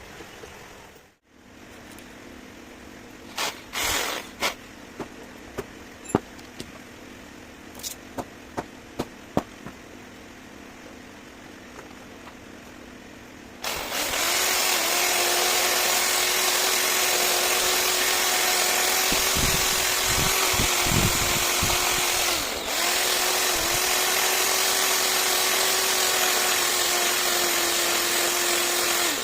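A few light clicks and taps of handled metal parts, then about halfway through an electric power tool starts and runs steadily at speed with a held whine, its pitch dipping briefly once as if loaded.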